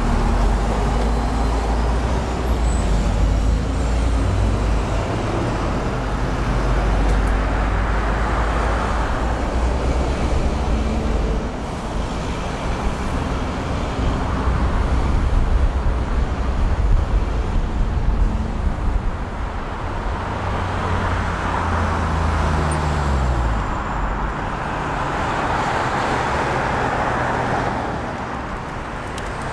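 City street traffic: cars and buses passing, with a heavy engine rumble that eases about a third of the way through. A little past the middle, a vehicle's engine note falls in pitch as it slows, and tyre noise swells and fades as vehicles go by.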